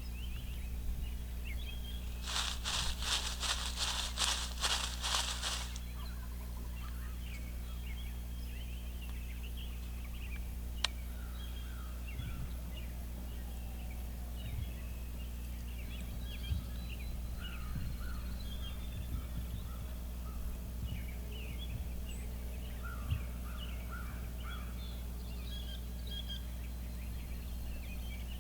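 A loud, rapid run of about ten raspy turkey notes lasting three or four seconds. After it, songbirds chirp faintly over a steady low hum, with a single sharp click about halfway through.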